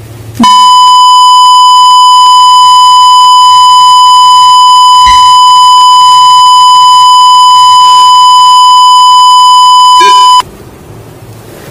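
A loud, steady, high-pitched censor beep, one unbroken tone for about ten seconds, laid over a phone conversation to mask the speech. It starts about half a second in and cuts off suddenly about a second before the end.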